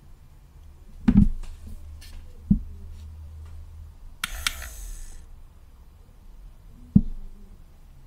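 A small DC motor inside a homemade plastic random-number box whirs for about a second, a little past the middle, as the digit in its window changes. A few sharp knocks of the hard plastic case being handled come before and after.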